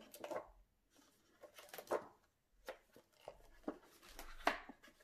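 Pages of a spiral-bound coloring book being turned and handled: several short paper rustles and flaps.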